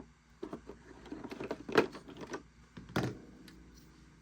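Plastic action figure being handled and taken out of its plastic packaging tray: a run of light clicks and knocks, the two loudest about two and three seconds in, then quieter.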